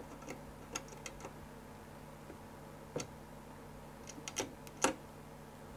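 A few faint, scattered small metallic clicks, the clearest about three seconds in and again near the end, as a tool is touched across a motherboard's power-switch header pins to start it. No fan spins up, because the power supply being tested is dead.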